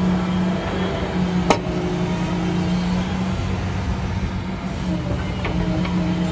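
Liebherr R954C HD Litronic crawler excavator's diesel engine running steadily while the upper structure slews. A single sharp clank comes about one and a half seconds in.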